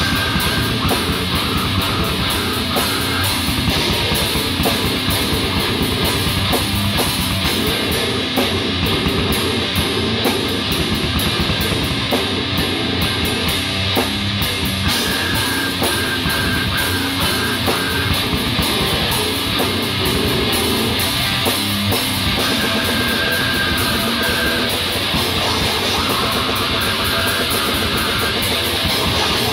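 Heavy metal band playing live in the room: loud electric guitar over a drum kit with cymbals, going on without a break.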